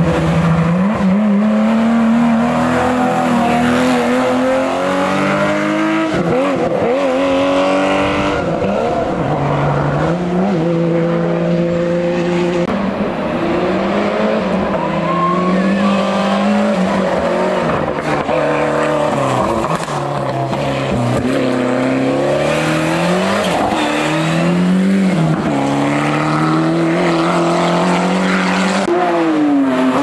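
Historic rally cars at full throttle on a closed stage, among them an air-cooled flat-six Porsche 911. Loud engines rise in pitch through each gear and drop back at every shift, as one car after another goes by.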